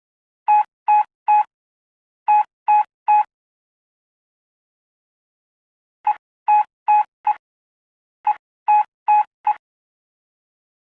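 Morse code beeps in a steady mid-pitched tone, keyed at a practice pace. The letter O (three dashes) sounds twice, then after a pause the letter P (dot, dash, dash, dot) sounds twice.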